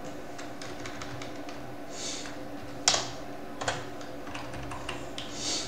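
Typing on a computer keyboard: scattered keystrokes, with one louder key strike about three seconds in, over a faint steady hum.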